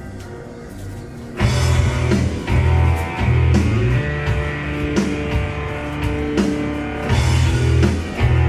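Guitar-led rock music with heavy bass played through Rega Aya floor-standing loudspeakers. It is quiet at first, then the full band comes in loudly about a second and a half in.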